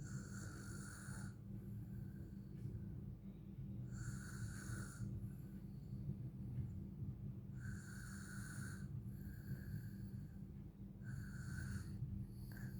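A small child snoring in sleep, one snore about every four seconds, four in all.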